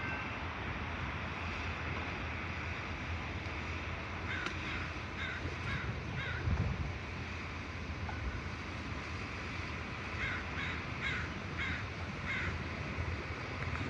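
A crow cawing in two series of short calls, about four together and then about five more some seconds later, over a steady low rumble.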